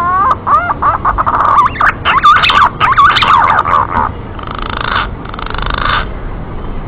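Bird calls: a fast run of wavering, warbling notes for about four seconds, then two harsh, drawn-out calls about a second long each.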